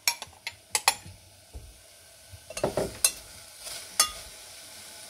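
Kitchen utensils clinking and knocking against a cooking pot as raspberries are put into it: several sharp knocks in the first second, a quick cluster about midway and a last sharp knock about four seconds in, followed by a steady faint hiss.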